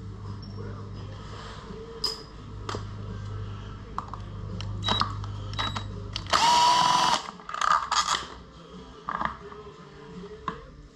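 A power drill-driver runs in one short loud burst, a little under a second long with a steady whine, about six seconds in, backing out the bigger screws that hold the motorcycle's stock air cleaner. Scattered sharp clicks of metal parts and tools come before and after it.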